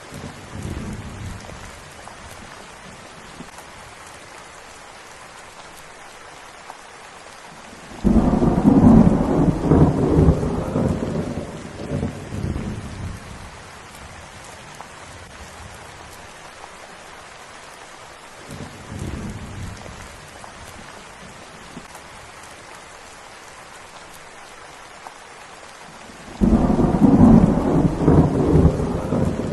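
Steady rain with rolls of thunder: a loud low rumble breaks in suddenly about eight seconds in and dies away over several seconds, another loud one starts near the end, and two fainter rumbles come near the start and about two-thirds through.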